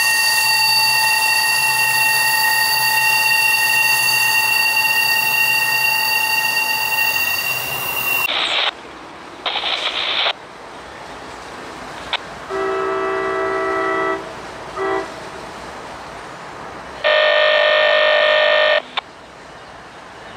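Locomotive air horn sounding a long, steady multi-note chord that cuts off about eight seconds in, followed by a few shorter horn blasts.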